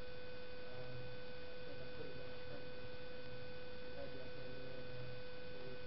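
Steady electrical hum, one constant tone with fainter higher tones above it, under faint, indistinct voices.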